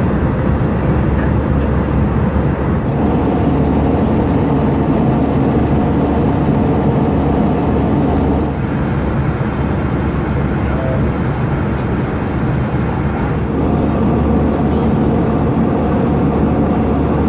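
Steady drone heard inside the cabin of an Airbus A320 in flight: airflow rushing along the fuselage, with its CFM56 engines. It eases slightly for a few seconds about halfway through.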